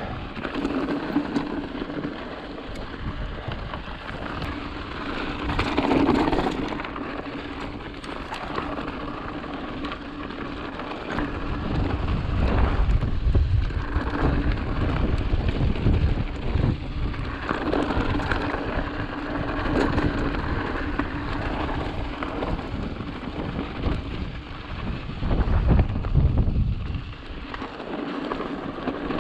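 Hardtail mountain bike riding down a dirt trail: tyres rolling over loose dirt and rock, with the bike rattling. Wind rumbles on the action-camera microphone in gusts, loudest in the middle and near the end.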